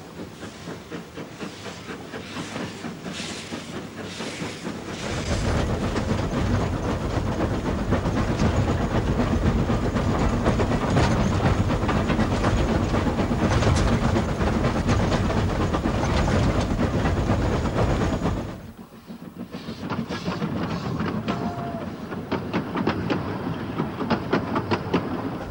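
Isle of Man Railway narrow-gauge steam train running, a dense rapid clatter with steam noise. It grows louder and fuller about five seconds in, drops out sharply for a moment about two-thirds of the way through, then goes on more quietly.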